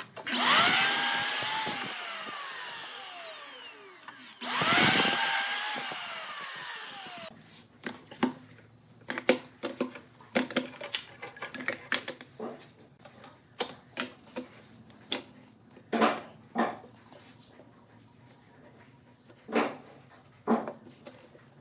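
An electric power tool run twice in short bursts, its whine falling in pitch each time as the motor winds down. Scattered short knocks and clicks follow.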